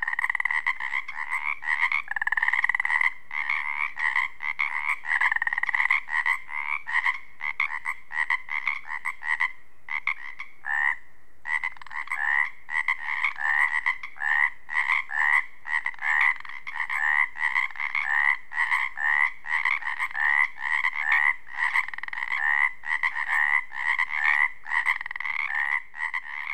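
A chorus of many male Pacific chorus frogs (Pacific tree frogs) calling at once, their short calls repeating and overlapping densely, with a brief lull about eleven seconds in. It is a mating-season chorus, males calling to attract females.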